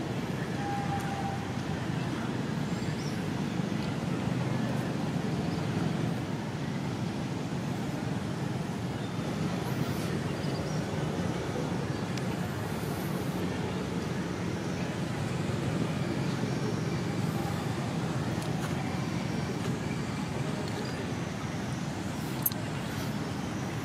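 Steady outdoor background noise, a low din like distant road traffic, with a single sharp click near the end.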